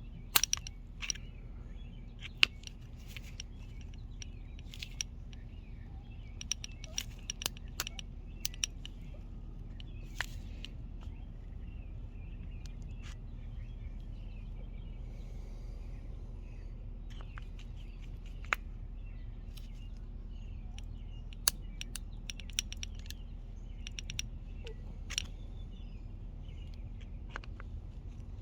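Screwdriver clicking and scraping in the slot of a seized, varnish-gummed main jet in a push-mower carburetor, scattered sharp ticks over a steady low hum. The jet will not turn, and its screwdriver slot breaks off.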